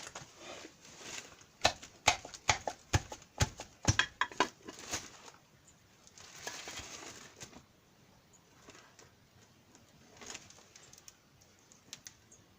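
Hand tools knocking and clinking on metal: a quick run of sharp knocks in the first five seconds, then a brief rushing noise and a few scattered clicks.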